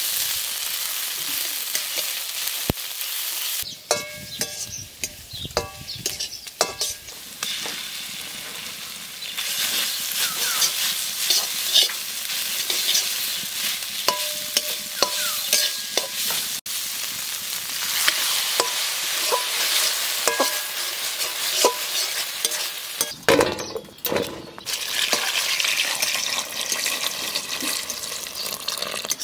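Sliced onions and dried red chillies sizzling in hot oil in an aluminium kadai, stirred and scraped with a metal spatula, with scattered clicks of the spatula against the pan. Near the end, water pours into a metal bowl of cut ridge gourd.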